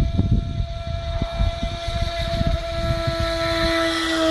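Radio-controlled speedboat's motor running with a steady high whine, its pitch wavering slightly near the end, over wind buffeting the microphone.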